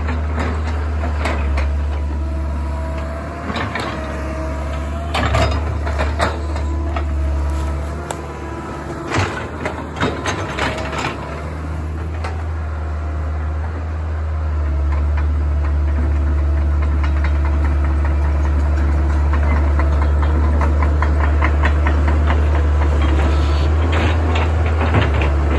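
Kobelco hydraulic excavator's diesel engine running under load, with a whine that rises and falls as the boom and bucket work. Sharp knocks and clanks of the bucket and debris come through the first half. From about halfway on, the engine gets louder and steadier.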